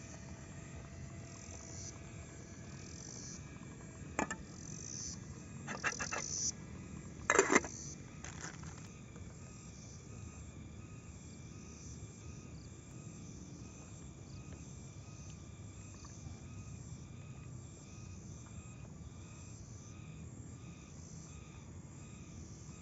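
Steady chorus of insects and frogs, with regular faint high chirps. Between about four and eight seconds in come several sharp knocks, the loudest sounds here.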